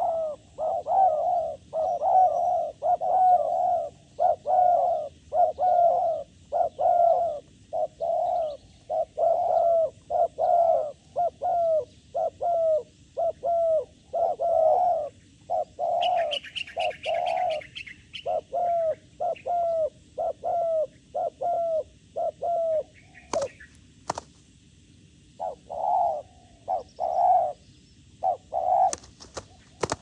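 Doves cooing over and over, a long run of short, low coos coming about once or twice a second, pausing briefly and then starting again near the end. A quick burst of higher chirping comes about halfway through, and a few sharp clicks follow later.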